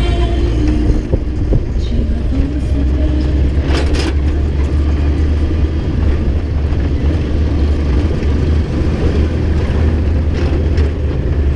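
Pickup-truck bus driving along a street, heard from its open rear step: a steady low rumble of engine and road noise, with a brief sharp clatter about four seconds in.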